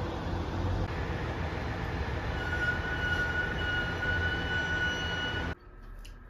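A train running, a steady rumble with a high, even squeal of the wheels joining about two seconds in. It cuts off suddenly near the end.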